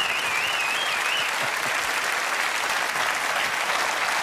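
Large studio audience applauding steadily, dense clapping.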